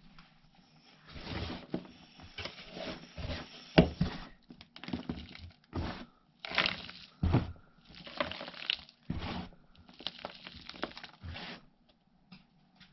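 Hands sifting and scooping loose worm bedding on a plastic tray: irregular rustling and scraping, with a few sharp knocks of plastic tubs and tray being handled.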